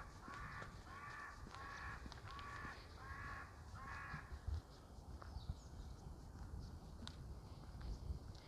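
A crow cawing over and over, about seven harsh calls evenly spaced a little over half a second apart, stopping about four seconds in.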